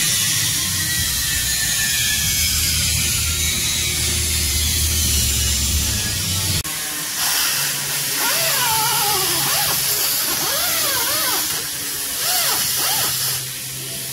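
Loud, steady hissing workshop noise, with a low hum under it in the first half. After a sudden change about halfway through, a small power tool whines in the background, its pitch rising and falling again and again.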